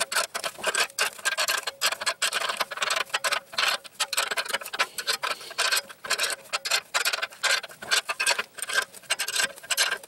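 Ratcheting wrench clicking in quick back-and-forth strokes as it runs a nut down a bolt of a stainless steel exhaust band clamp. The clicks come in dense runs with short pauses between them.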